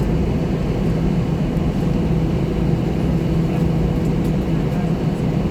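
Steady low drone of airliner cabin noise, a constant hum with rumble beneath, while the plane is parked after landing.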